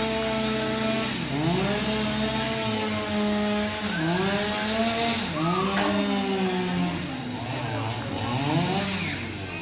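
Chainsaw cutting into a tree trunk, its engine running high and then repeatedly sagging in pitch under load and climbing back, several times.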